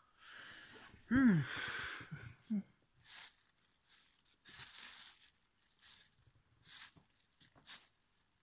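Plastic sheeting crinkling in scattered short rustles as it is handled. About a second in there is a brief rising-and-falling vocal sound with a breathy hiss.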